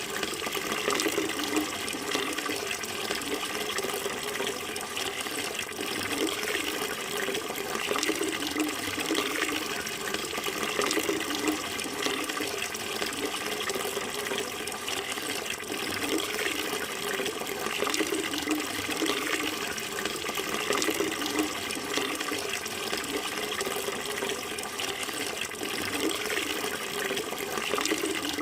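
Running water flowing steadily, an unbroken rushing with small fluctuations.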